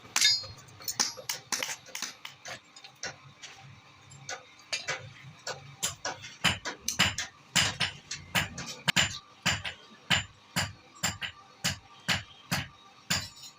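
Irregular series of sharp hammer taps, a few a second, louder from about six seconds in.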